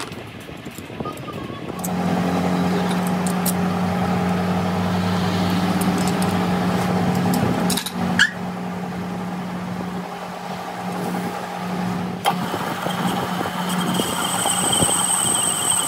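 Metal lathe running with a steady hum, with a couple of sharp knocks along the way. In the last two seconds the cutting tool bites into the steel axle end and a high-pitched whine joins the hum.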